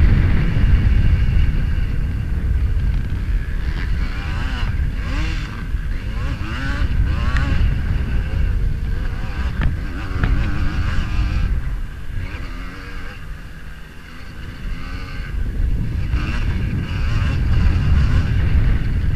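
Pre-1985 vintage motocross bike's engine, ridden hard, revving up and down as the rider works the throttle and gears, with a heavy low rumble. It eases off about three-quarters of the way through and opens up again near the end.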